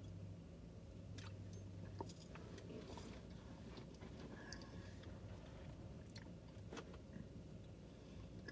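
Faint background quiet with scattered small clicks and a low hum that stops about two seconds in, where a single soft thump comes, a car door shutting at a distance.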